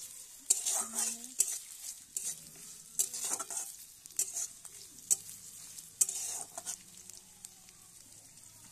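Metal spatula scraping and stirring sliced onions and dried red chilli in a metal kadai, in short strokes with the loudest about half a second, three, five and six seconds in. The onions sizzle in the hot oil between strokes.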